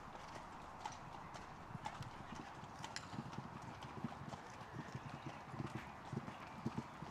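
A showjumping horse cantering on a sand arena surface: a steady run of dull hoofbeat thuds.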